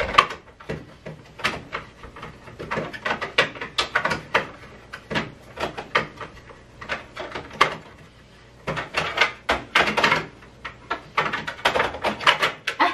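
An irregular run of clicks and knocks from things being handled at the washing machine while laundry is being loaded.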